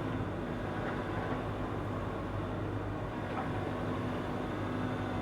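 Excavator diesel engine running steadily under way, a constant low hum with no sharp knocks.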